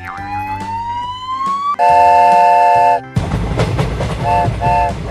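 Cartoon train sound effects: a rising whistle, then a long train horn toot about two seconds in, followed by train running noise with two short toots of the horn near the end.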